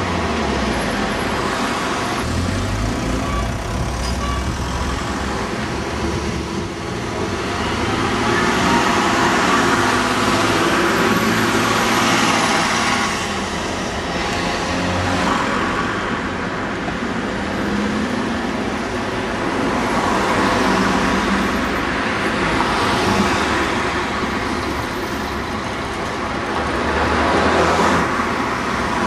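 Diesel vehicle engines running amid passing traffic, the sound swelling and fading several times, loudest about ten seconds in and again near the end.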